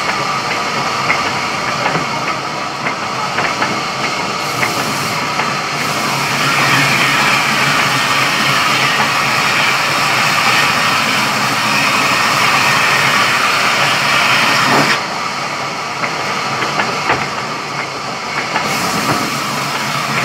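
Sawmill saw machine running and cutting through a log, a loud, steady dense noise. About three-quarters of the way through, the sound drops and thins for a few seconds, then comes back.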